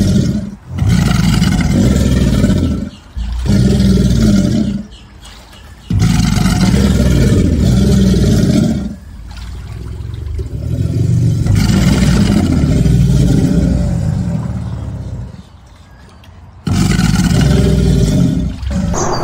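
Alligator bellowing: a series of deep, rumbling bellows, each lasting a few seconds, with short breaks between them.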